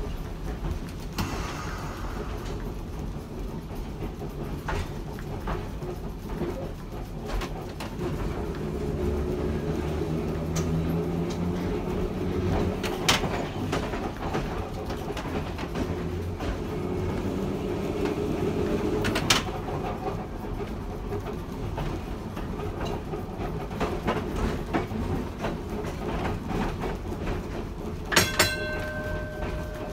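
Montreal streetcar 2001 running under power: a steady low running sound with a motor and gear hum that rises and falls, and wheels clicking over rail joints, with a couple of sharp clanks. Near the end a quick rattle of clicks is followed by a short ringing metallic tone.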